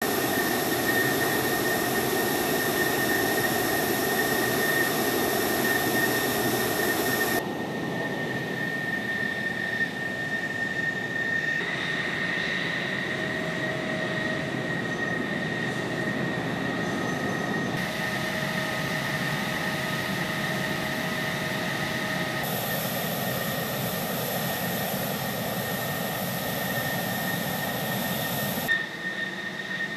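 F-16 Fighting Falcon jet engine running at idle during hot-pit refuelling: a steady rushing noise with a high whine over it. The level and tone shift abruptly several times as the shots change.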